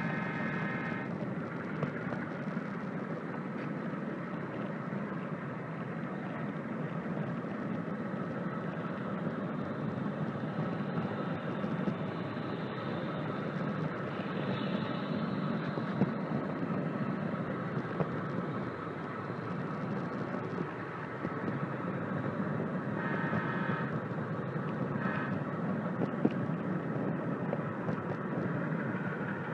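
HO scale model train running along its track, heard from a camera riding on the train: a steady rumble and rattle. A brief higher tone sounds at the start, and two more near the end.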